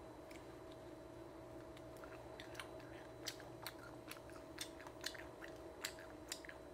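A person chewing batter-fried coconut worms (palm weevil larvae): faint, crisp crunches at irregular intervals, starting about two seconds in and coming thicker toward the end. The fried skins are chewy but crisp.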